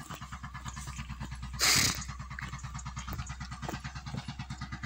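An engine running steadily with a fast, even beat, and one short loud rush of noise about one and a half seconds in.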